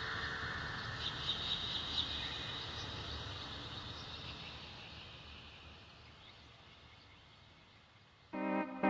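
Recorded night-time nature ambience with a few faint high chirps from small creatures, fading slowly almost to silence as a track closes. Near the end, the next track starts abruptly with electric keyboard chords.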